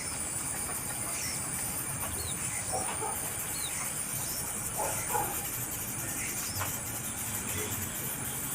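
Faint short bird chirps, a few high quick upward and downward notes scattered through, over a steady background hiss.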